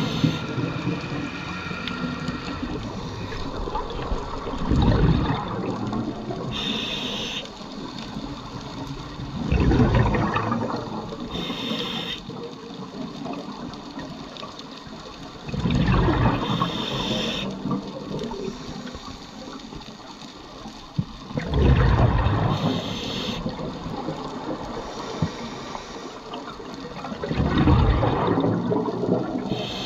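A scuba diver breathing through a regulator underwater: five bubbling exhalations about every six seconds, each followed by a short hiss as air is drawn in.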